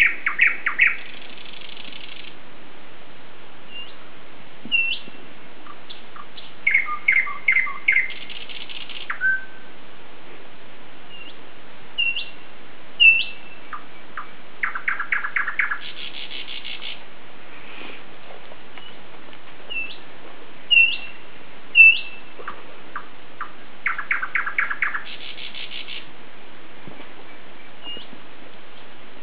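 Birds singing: scattered short chirps and quick upward-flicking whistles, with several rapid trills of short repeated notes, over a steady hiss.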